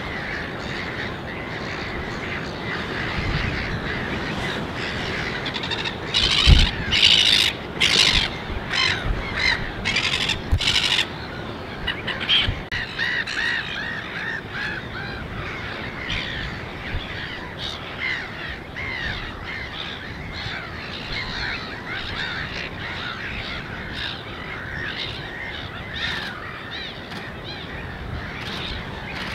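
A flock of wetland birds calling continuously in many overlapping voices, with a run of louder, sharp calls about six to eleven seconds in.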